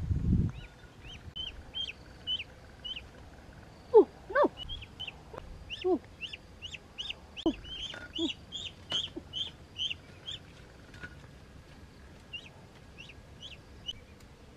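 Young ducks peeping over and over in short, high chirps, which come faster and crowd together in the middle. A few louder, lower rising calls break in between about four and eight seconds in, and a brief rustle or thump comes right at the start.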